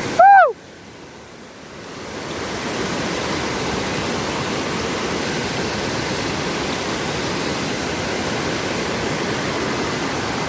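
Waterfall rushing as a steady wash of water noise. A short, loud voiced "oh" comes just after the start, then the water sound dips for about two seconds and rises back to a steady rush.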